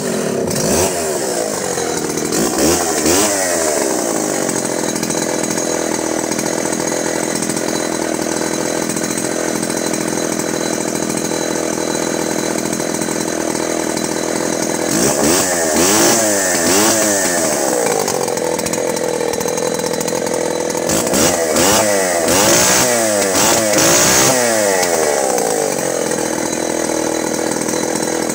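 Vintage Stihl 07 two-stroke chainsaw, just started on choke, running steadily and revved up and down in three spells: in the first few seconds, about fifteen seconds in, and again about twenty-one seconds in.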